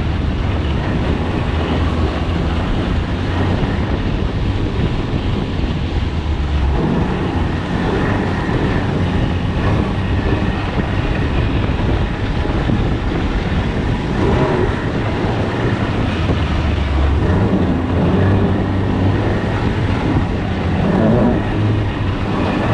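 Snowmobile engine running steadily on the move, its low drone shifting slightly in pitch now and then, with wind noise on the microphone.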